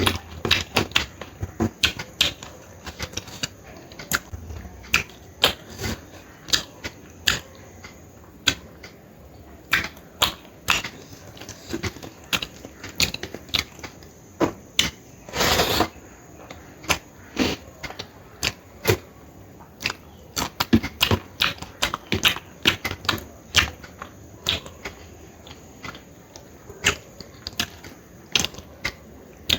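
Close-miked eating sounds: an irregular stream of chewing and lip-smacking clicks, with one longer noisy sound about fifteen seconds in.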